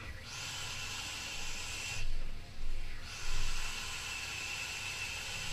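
Electronic cigarette coil hissing as it fires during two long draws, the second starting about a second after the first ends, with a faint steady whistle in the hiss and a short louder noise between the draws. The atomiser has been over-filled with liquid, which the vaper blames for the slow start of the vapour.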